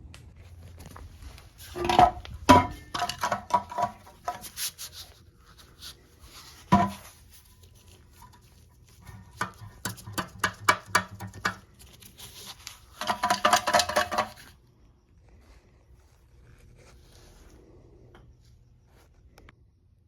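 Metal clinks and knocks from hand tools at work on a motorcycle being stripped down, with several short runs of rapid clicking like a ratchet wrench; the longest run comes about two-thirds of the way in.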